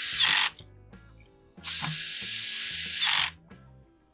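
Cordless drill driving screws into a power cutter's plastic cover, in two runs: the first stops about half a second in, the second runs from about a second and a half to just past three seconds, each ending on a brief louder whir as the screw seats.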